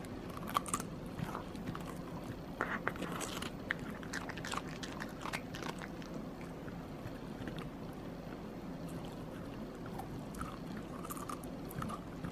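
Dog biting and chewing a chunk of carrot, with irregular crisp crunches; the crunching thins out for a few seconds in the middle and picks up again near the end.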